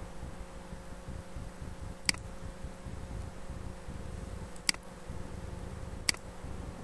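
Three sharp computer mouse clicks, the second about two and a half seconds after the first and the third a second and a half later, over a steady low background hum.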